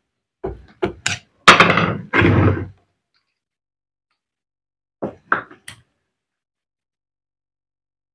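Metal parts and tools knocking and clattering on a workbench while an electric demolition hammer is being reassembled. There are a few short knocks, then two longer, louder rattles about a second and a half in, and three more quick knocks around the middle.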